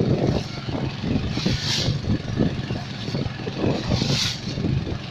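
Four-stroke EFI engine running on gas fuel through a conversion kit, a steady engine rumble, with two short bursts of hiss, about two seconds in and again near four seconds.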